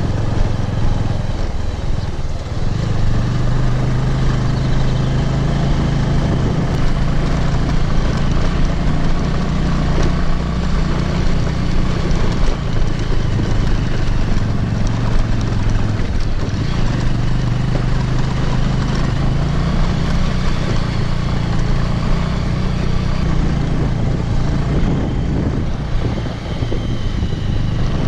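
Motorcycle engine running while the bike is ridden along a rough gravel mountain road, its note rising and falling with the throttle and easing off briefly a few times, over a steady rush of road and wind noise.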